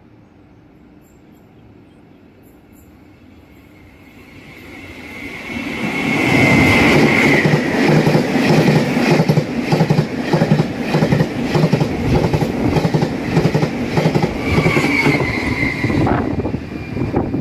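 Taiwan Railway PP (push-pull) Tze-Chiang express train passing at speed: it builds up as it approaches, then gives a loud, evenly repeating clatter of wheels striking the rail welds and fishplate joints. A high ringing wheel squeal comes in as it arrives and again near the end.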